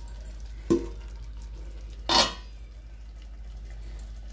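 Pan of papad curry simmering on the stove over a medium flame, with a short knock about a second in and a louder clink of cookware about two seconds in.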